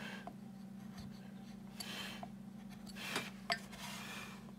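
A hand woodcarving blade shaving off excess wood: short scraping cuts about two seconds in and again from about three to four seconds in, with a few light clicks of the tool on the wood.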